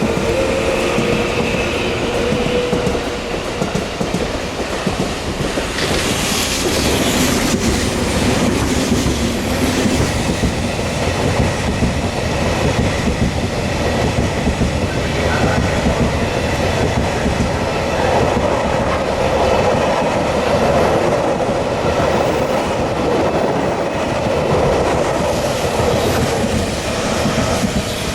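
Train running past along the platform, with loud, steady wheel-on-rail noise and clatter.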